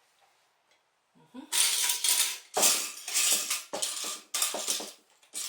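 Loose plastic LEGO pieces clattering in a run of about five rattling bursts, starting about a second in, as a hand sifts through a pile of bricks.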